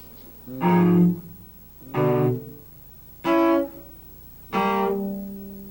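Cello bowing four short notes with pauses between, the last held and fading away: a demonstration of playing minor thirds on the outer strings in first and fourth position.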